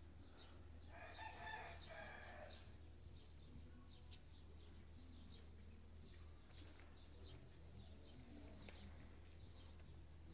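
Faint bird sounds: one longer call lasting about a second and a half, starting about a second in, over scattered short high chirps.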